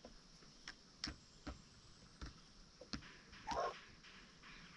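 Chickens: faint scattered sharp taps and clicks, irregular, about one or two a second, with one short chicken call about three and a half seconds in.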